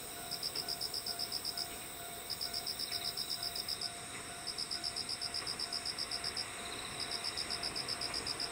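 Insects singing at night. One chirps in rhythmic phrases of about a second and a half, roughly ten pulses a second, with short pauses between phrases, over a steady high-pitched trill from others.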